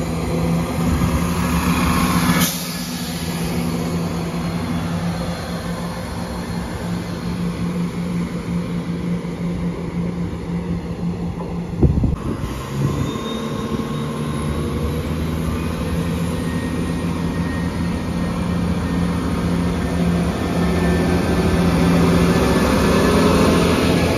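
Diesel multiple unit, a CrossCountry Class 170 Turbostar, with its underfloor diesel engines running in a steady low hum. About halfway through the sound cuts to a train drawing in, with a faint rising squeal, and the steady diesel hum returns near the end.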